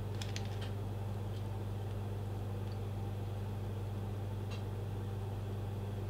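Steady low electrical hum, with a few faint rustles and clicks of a paper manual being handled near the start and about four and a half seconds in.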